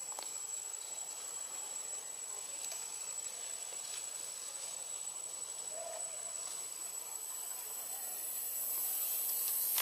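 Forest insects hissing at a high pitch, with a thin steady whine running under it. The hiss swells louder near the end.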